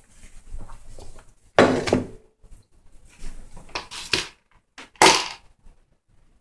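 Knocks and clatter of a stainless steel mixing bowl and kitchen gear being handled and set down on a table: a few separate sudden knocks, the loudest about five seconds in.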